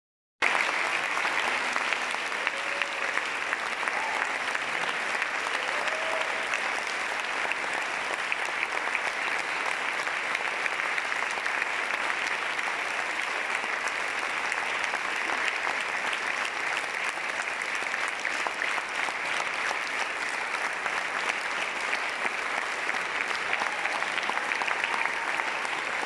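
Large theatre audience giving sustained applause, a dense steady clapping with a few voices calling out faintly within it.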